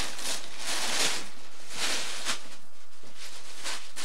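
Soft rustling of a quilted blanket, coming in uneven swells about every half second to a second over a steady hiss.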